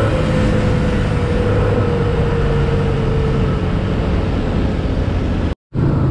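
Yamaha Sniper 150's single-cylinder four-stroke engine running under way, under loud rushing wind noise on the microphone. The engine note slowly drops in pitch over the first few seconds. All sound cuts out for a split second about five and a half seconds in.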